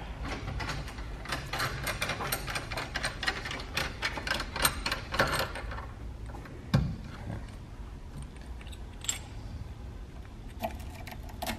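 Rapid clicking and rattling of air-line fittings and parts being handled, with one sharp thump about seven seconds in and a few more clicks near the end.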